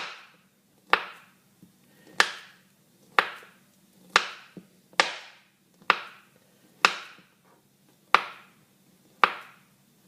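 Knife slicing a banana, the blade knocking sharply on the surface beneath with each cut, about once a second, ten cuts in all.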